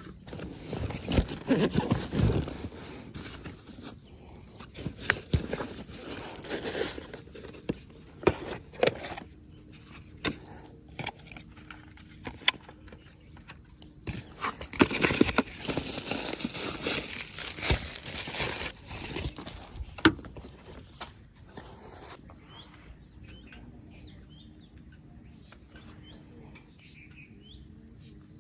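Outdoor ambience: scattered knocks and rustling, busiest in the first two-thirds, with a faint steady high-pitched insect drone in the last several seconds.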